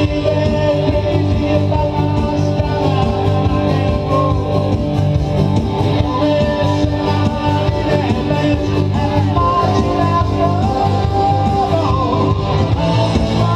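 Live rock band playing loud: electric guitars and drum kit, with a lead melody that slides and bends in pitch.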